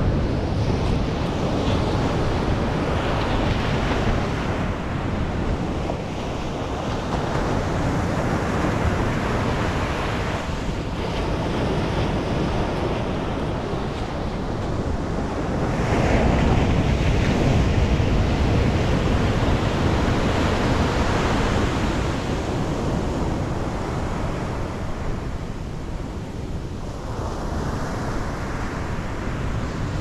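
Pacific surf breaking and washing up a sandy beach, swelling and ebbing in waves, with a louder break about halfway through. Wind rumbles on the microphone underneath.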